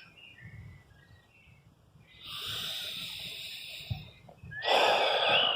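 A person breathing close to the microphone: two long airy breaths, the first about two seconds in and the second, louder one near the end. Birds chirp faintly in the background.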